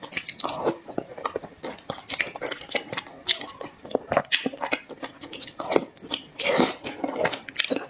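Close-miked chewing of zongzi, the glutinous rice dumpling, with many quick wet mouth clicks and smacks.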